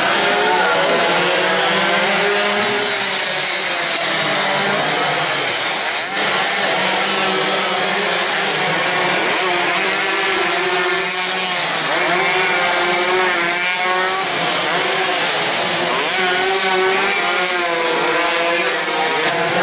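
Small underbone racing motorcycles revving hard as they race past in a group, engine pitch rising and falling repeatedly with throttle and gear changes, several engines heard at once.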